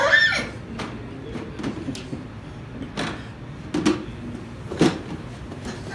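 A toddler handling a plastic toy kitchen: sharp clacks of its small oven door and buttons about three seconds in, again just before four seconds and near five seconds. A short high sound falling in pitch opens the stretch.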